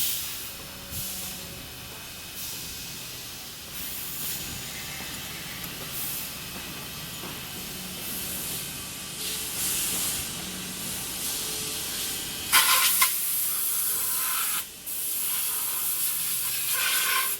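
CNC milling machine cutting an aluminium alloy stunt-scooter deck: a steady hiss over a low machine hum, with a short loud spell of hissing about twelve and a half seconds in and a longer one from about fifteen seconds.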